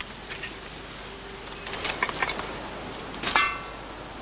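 Empty glass bottles knocking and clinking together in a carried wicker basket: a few light clinks about two seconds in, then one louder, ringing clink near the end.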